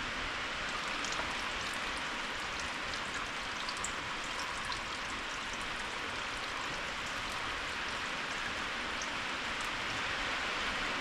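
Steady rain falling, an even hiss with scattered faint drip ticks.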